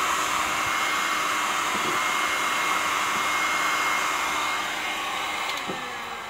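Electric heat gun blowing steadily with a fan whine. About five seconds in, the whine drops in pitch and the blowing fades as the gun winds down, with a light knock near the end.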